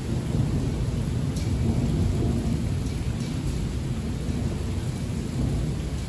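Thunder rumbling low over steady heavy rain, the rumble swelling about half a second in and easing off slowly.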